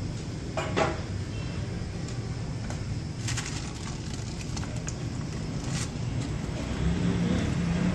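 Butter paper crinkling and rustling in a few short bursts as a slab of barfi is lifted out of the pan on it, over a steady low hum.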